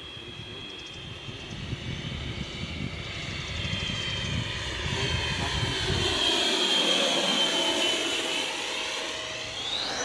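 A radio-controlled model jet's 120 mm electric ducted fan whining as it flies past, growing louder to a peak about six to eight seconds in as the pitch slides down, then climbing sharply in pitch near the end. Wind rumbles on the microphone during the first half.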